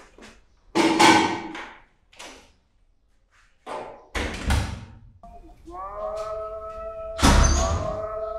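A string of heavy thumps and knocks, like a door banging. About five seconds in, a steady droning tone of several pitches slides in and holds, and one last loud thud lands over it near the end.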